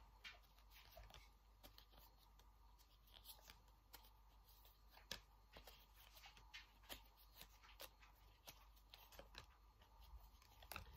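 Faint handling of a deck of playing cards: scattered soft flicks and taps as the cards are shuffled and laid out.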